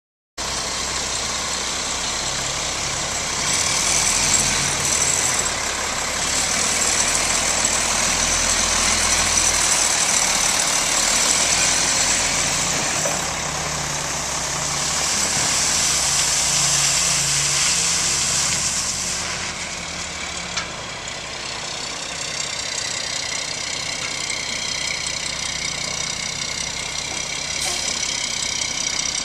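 A 2007 Mack LE613 garbage truck's 12.0-litre inline-six diesel engine running at idle. The sound swells and eases at times, and a higher whine comes in over the last several seconds.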